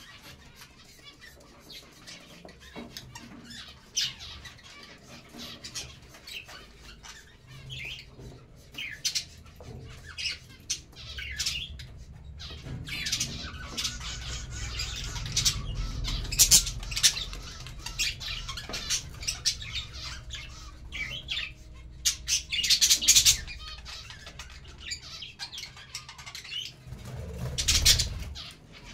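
Budgerigars chirping and chattering, the louder chirps coming in spells around the middle and again near the end. Just before the end there is a flurry of wing flapping as birds take off from the perch.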